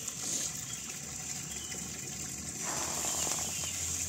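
Pancake batter ingredients being poured, with a short gush about two and a half seconds in, over a steady high hiss.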